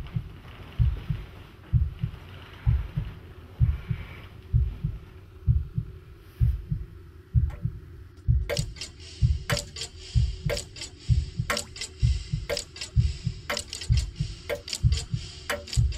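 A heartbeat sounding in low, evenly repeating double beats. About halfway through, sharp irregular clicks join in, a couple per second.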